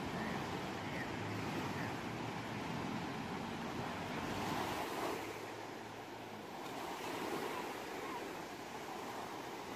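Ocean waves washing onto a shore, a steady rush of surf that swells about halfway through and then eases back.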